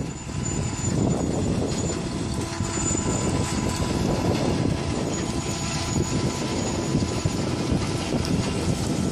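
New Holland 3550 AL self-levelling combine harvester running under load while harvesting sunflowers: a steady mechanical drone of engine and threshing gear, with a thin high whine that comes and goes.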